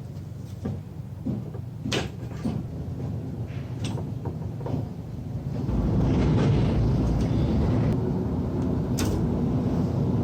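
Light clicks and knocks of hardware being handled. About six seconds in, a steady motor-driven rush of air starts and keeps running, like an electric power duster blowing dust off the rig.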